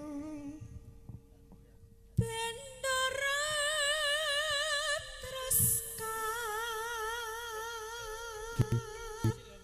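A woman singing long, drawn-out notes with a wide vibrato in a Javanese sinden style. A short wavering phrase opens, then comes a pause of about two seconds, then sustained notes, over a faint steady hum. A couple of low drum thumps come near the end.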